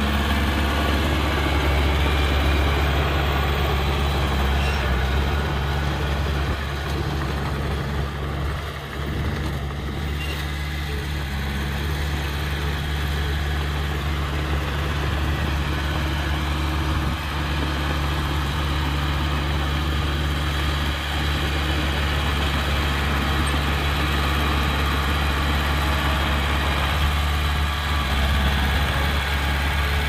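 Heavy earthmoving machine's diesel engine running steadily at a constant low pitch.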